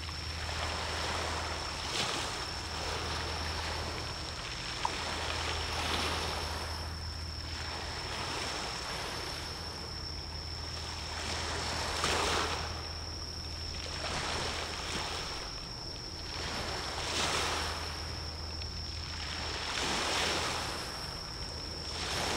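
Small sea waves washing in, swelling every few seconds over a steady low drone and a constant thin high-pitched tone.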